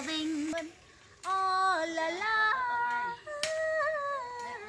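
A woman's voice singing long held notes that step between pitches, with a short break about a second in.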